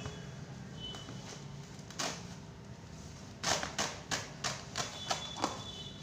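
Packaging being cut and pried open with scissors: one sharp snap about two seconds in, then a quick run of about eight sharp snips and cracks over two seconds.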